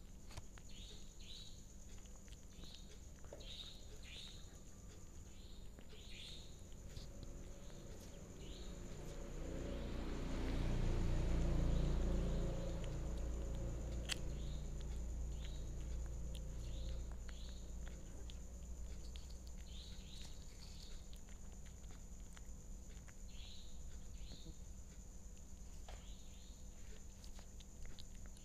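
A cat eating rice and food close to the microphone, with small chewing clicks. Behind it are short chirps, often in pairs, every second or two, and a steady high-pitched whine. About ten seconds in, a low rumble swells up, becomes the loudest sound, and fades away over several seconds.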